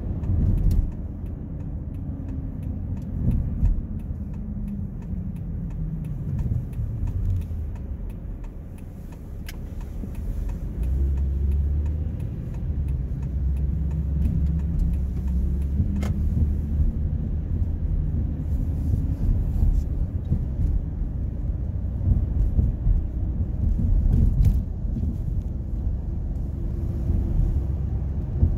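Car engine and tyre noise while driving at low speed, a steady low rumble. The engine tone falls as the car slows over the first several seconds, then rises again as it picks up speed.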